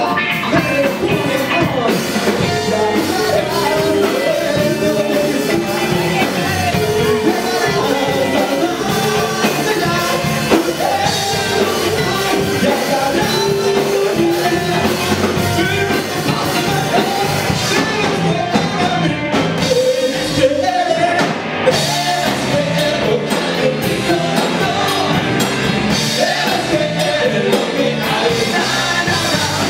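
Live rock band playing, a male lead singer singing into a handheld microphone over electric bass and electric guitar.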